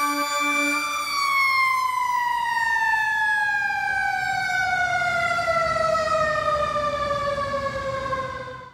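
Tractor-drawn aerial ladder fire truck's siren sounding a steady tone, then about a second in winding down in one long, slow falling glide as the truck drives off, with its engine rumble underneath. The sound cuts off abruptly near the end.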